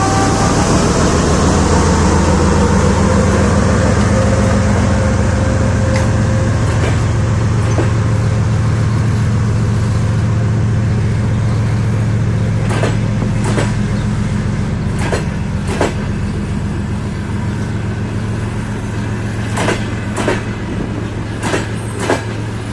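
TEP33A diesel locomotive's engine running with a heavy, steady low drone as it moves a passenger train. In the second half, sharp clicks come mostly in pairs, typical of wheels crossing rail joints.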